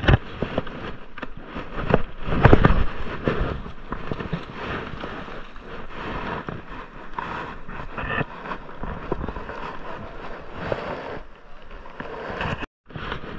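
Wind buffeting the microphone, with the rustle and knocks of a rope being handled as a magnet-fishing magnet is thrown out and hauled back; a louder gust comes about two and a half seconds in.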